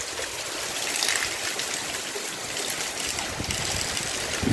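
Heavy rain pouring steadily: a dense, even hiss of rainfall.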